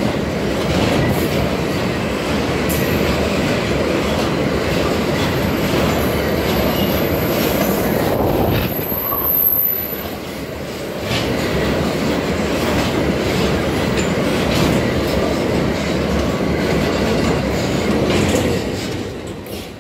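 Freight train of loaded double-deck car-carrier wagons rolling past close by, its wheels clattering on the rails. A thin, high wheel squeal sounds from about six to nine and a half seconds in, and the noise fades near the end as the last wagon goes by.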